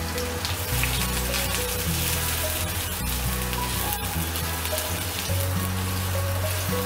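Chopped onion sizzling in hot oil in a steel kadai while a wooden spatula stirs it, with background music playing over it.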